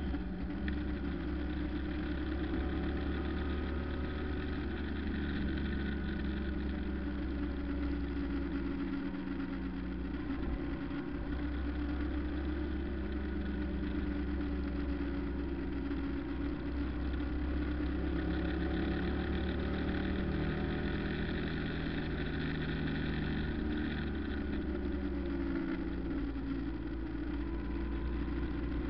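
Car driving along a road: engine running steadily over low road noise, its note drifting slightly up and down with speed.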